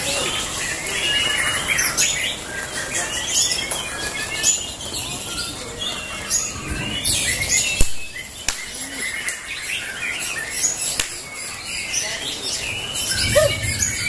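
Several caged contest white-rumped shamas (murai batu) singing at once: a dense, overlapping stream of whistles, trills and chirps, with a sharp click about eight seconds in.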